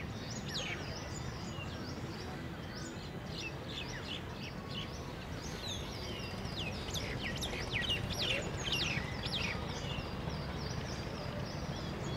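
Many small birds chirping, with short, quick downward-sweeping calls that grow busiest a little past the middle, over a steady low background rumble.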